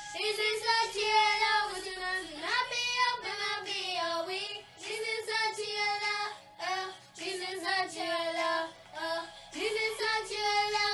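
Two young girls singing a song together, with held notes and slides in pitch, in phrases broken by short pauses.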